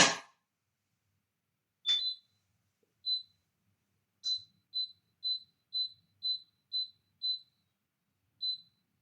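A brief clatter right at the start, then a cooker's touch-control panel beeping once per button press as it is switched on and its heat stepped up: a few spaced beeps, then a run of seven at about two a second, and one more near the end.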